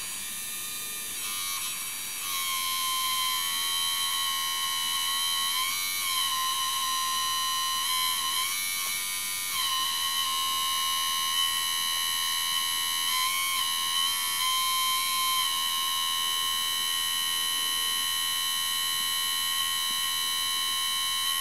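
Small electric-driven hydraulic pump of an RC model tractor (ScaleART) whining steadily at a high pitch. The pitch dips briefly about half a dozen times as the valves switch and the loader cylinders take load.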